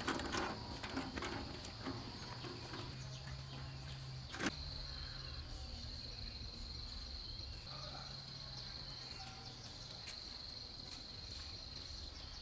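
Insects buzzing in one steady high-pitched tone over a faint low hum, with a single sharp click about four and a half seconds in.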